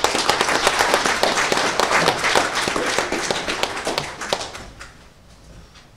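Audience applauding, many people clapping at once. The applause thins out and fades away about four to five seconds in.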